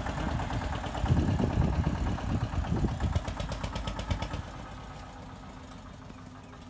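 Diesel tractor engine running with a steady low throb. It is louder for about two seconds starting a second in, then fades down after about four and a half seconds.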